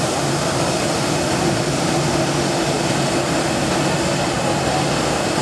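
Boeing 737-700's CFM56-7B turbofan engines running at taxi power: a steady jet rush with a low hum underneath, not rising.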